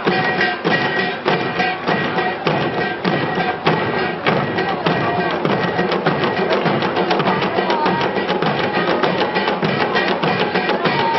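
Janggu drum ensemble playing a fast, driving rhythm of sharp strikes, the beat growing denser about halfway through.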